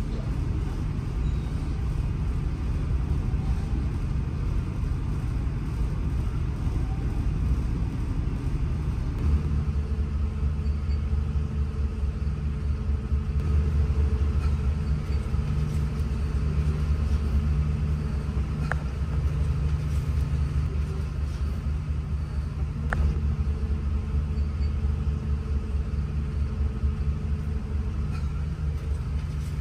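Diesel engine of a CFM D1M diesel multiple unit running, heard from inside the passenger car as a steady low hum and rumble; the hum settles into a clearer, steadier drone about nine seconds in. Two short sharp clicks sound about two-thirds of the way through, four seconds apart.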